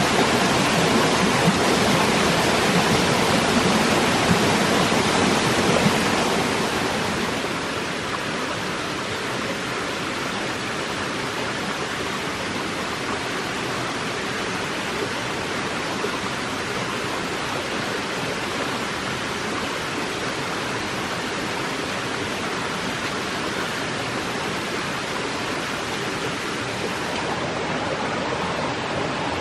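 Rushing water of a forest stream, a steady even hiss. It drops to a softer level about seven seconds in and stays there.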